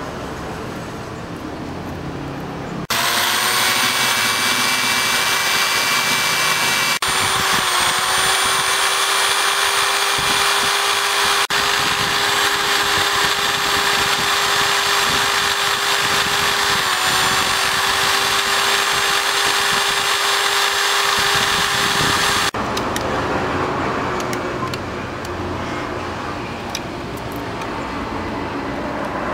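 Small high-speed rotary tool (mini drill or grinder) running at a steady pitch while its bit grinds a dried corn cob into a ring, its pitch dipping briefly once under load. It starts abruptly about three seconds in and stops abruptly a few seconds before the end, with quieter scraping and background noise around it.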